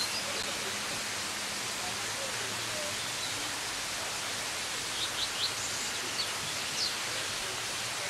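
Steady hiss of rushing mountain water, with a few short high bird chirps about five to seven seconds in.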